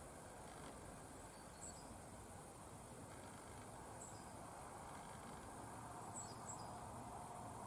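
Faint outdoor ambience: a low, even background hiss with a few brief high-pitched chirps, about three short clusters spread through it.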